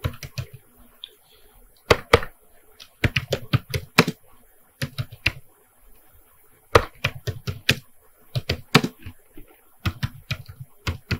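Typing on a computer keyboard: quick runs of key clicks, broken by a couple of short pauses.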